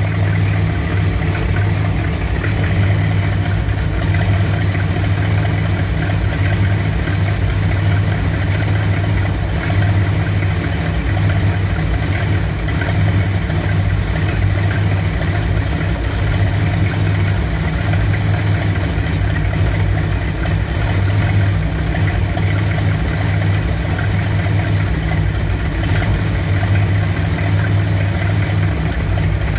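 1975 Dodge B200 Tradesman van's Mopar 360 (5.9 L) small-block V8 with a two-barrel carburettor, idling steadily while warm. The idle is rough even with a new ignition coil; when warm the engine has been stalling.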